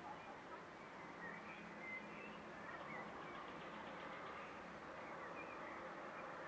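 Faint outdoor ambience: scattered distant bird chirps and calls, with a short rapid trill about three seconds in, over a low steady background hum.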